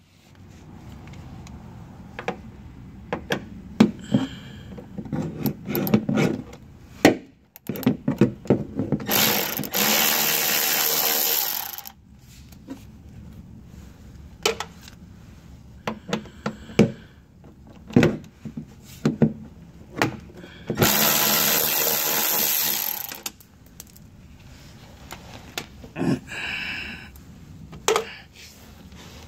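Cordless power driver running in two spells of about three seconds each, about nine seconds in and again about twenty-one seconds in, backing fasteners out of a machine's sheet-metal guard panel. Short clicks and knocks of handling and parts come between the spells.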